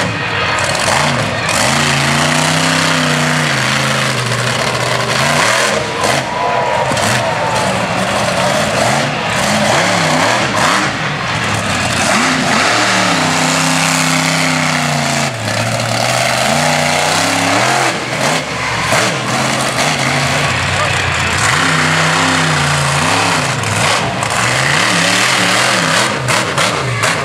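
Monster truck engines revving hard, rising and falling in pitch in repeated runs as the trucks accelerate and back off on a dirt course.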